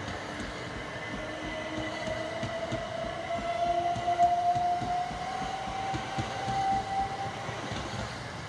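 Southern Class 377 Electrostar electric multiple unit accelerating along the platform, its traction motors giving a whine that climbs slowly in pitch over the rumble of the wheels on the rails. The sound is loudest about four seconds in.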